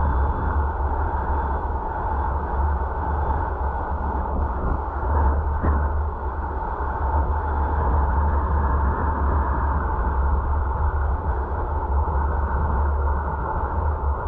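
Road and wind noise of a car being driven, heard from inside: a steady low rumble with a steady whine over it.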